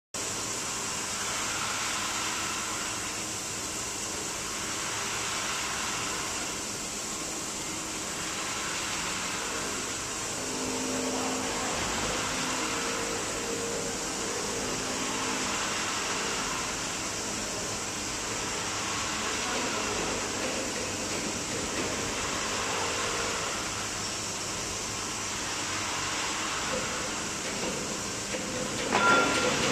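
Steady fan-like hum of a factory floor, with faint intermittent tones in the middle stretch. Near the end comes a single sharp metallic clank with a brief ringing tone.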